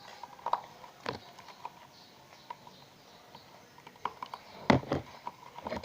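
Scattered light taps and clicks of hands handling things on a tabletop, with a few louder knocks near the end.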